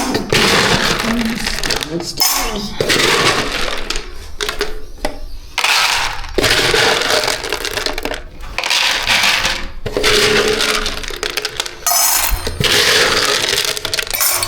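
Dry cat kibble rattling and clinking into metal feeding bowls in a series of pours, each a second or two long with short breaks between.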